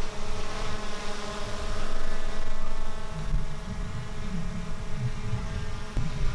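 DJI Mavic Air 2 drone's propellers buzzing with a steady, multi-toned whine as it flies following a subject in active-tracking mode, over a low, uneven rumble.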